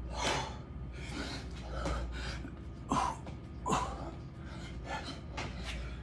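A man breathing hard through a burpee-style exercise, a run of short forceful exhales with two sharper, louder ones just after the middle. A steady low hum runs underneath.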